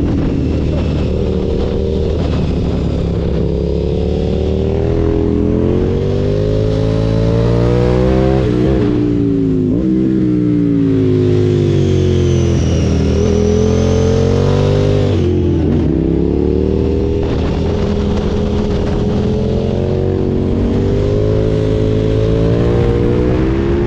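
KTM 990 Super Duke's V-twin engine under hard riding, the revs climbing and falling through the gears, dropping twice, about 9 and 16 seconds in, before pulling up again.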